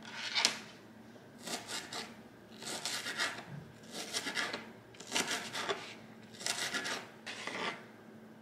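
Kitchen knife chopping red onion on a plastic cutting board: six short runs of quick taps with brief pauses between them.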